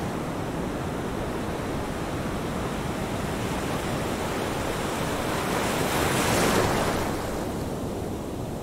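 Ocean surf breaking on a sandy beach, a steady wash of waves that swells as a wave crashes about six to seven seconds in.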